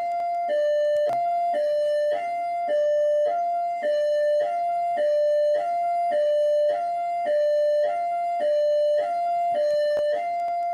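PMERJ police siren in hi-lo mode: two steady tones, one high and one low, alternating about every half second.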